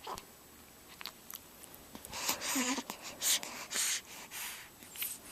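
A newborn baby's breathy snuffles and wheezes: a run of short, hissy bursts of breath starting about two seconds in, with a small low grunt among them and another near the end.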